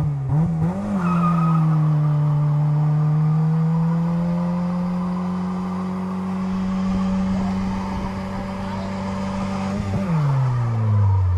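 Car engine revved up and held at high, nearly steady revs for about nine seconds in a burnout, with the spinning rear tyres squealing, then the revs fall away near the end.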